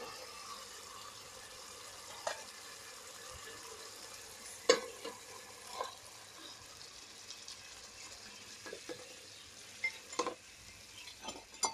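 Chicken pieces sizzling as they fry in oil and spice paste in a cooking pot, being browned. A spoon knocks against the pot about half a dozen times as it is stirred, loudest a little before halfway.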